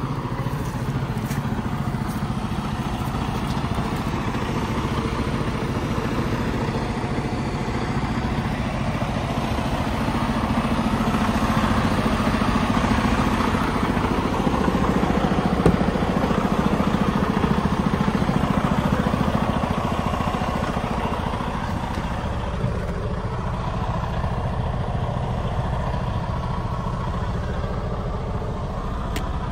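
Freightliner Cascadia truck tractor's diesel engine idling steadily, a little louder around the middle, with one sharp click about halfway through.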